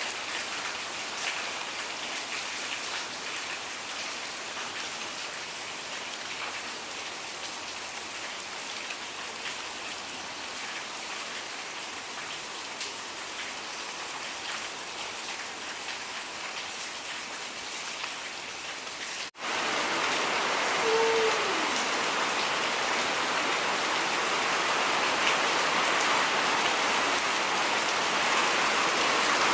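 Steady rain falling on surfaces. It cuts off sharply about two-thirds of the way through and comes back louder. Just after that, a brief pitched note falls away.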